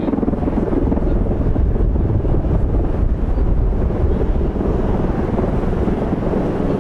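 Bell Boeing MV-22B Osprey tiltrotors flying low in helicopter mode, nacelles vertical: a loud, steady proprotor drone with a rapid low pulsing of the blades.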